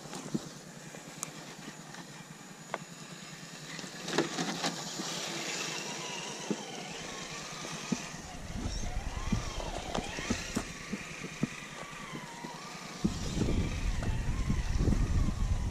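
Traxxas TRX-4 1/10-scale RC crawler's electric motor and geared drivetrain whining, the pitch rising and falling as the throttle changes, with scattered clicks and knocks from its tires on roots and dirt. Near the end a louder low rumble comes in.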